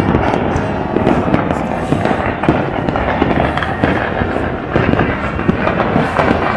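Fireworks and firecrackers going off all over the city at once, a continuous dense din of overlapping pops, cracks and bangs over a low rumble.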